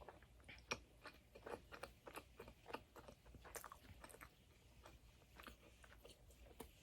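Close-up chewing of a doughnut: a run of short, soft mouth clicks and smacks, thinning out after about four seconds.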